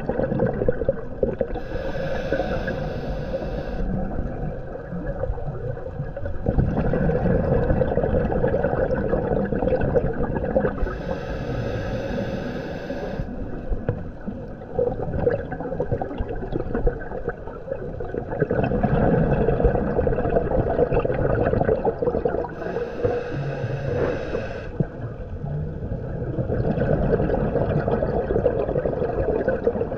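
Scuba diver's regulator breathing, heard underwater: three hissing inhales about ten seconds apart, with bubbly, gurgling exhales between them.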